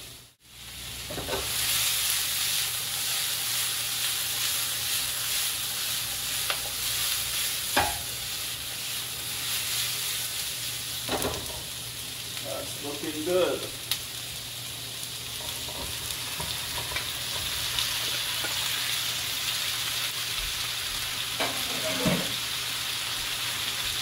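Diced peppers, onions and celery sizzling in hot oil in a frying pan over a gas flame, a steady hiss. A few short knocks and clatters from the utensil and pan come through it. The sound cuts out briefly just after the start.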